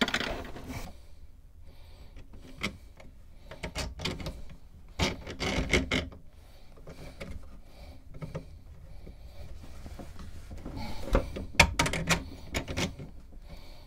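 Irregular knocks, scrapes and rubbing from someone moving about and handling tools and parts in a cramped boat locker. There are louder bursts of clatter about five seconds in and again near the end.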